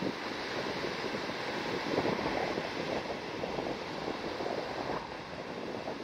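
Surf washing onto a sandy beach, with wind buffeting the microphone in gusts.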